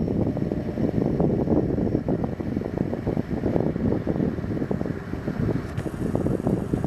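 Wind buffeting the microphone: a loud, gusty rumble that rises and falls.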